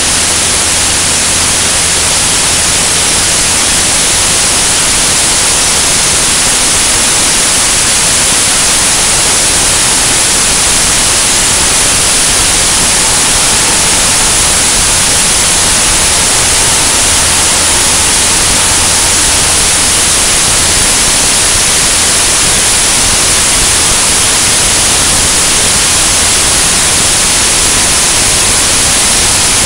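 Loud, steady rush of airflow over a camera mounted outside a single-engine high-wing light aircraft in flight. A low, even engine and propeller drone runs underneath.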